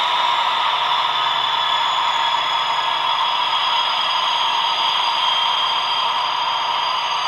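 Recorded DB class 218 diesel locomotive engine (MTU TB11) running steadily under power, played through a small H0 model locomotive speaker that thins out the low end. A faint high whine slowly falls in pitch.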